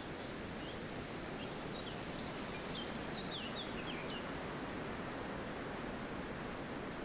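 Steady wind through forest trees, with a small bird giving a string of short, quick chirps over the first few seconds.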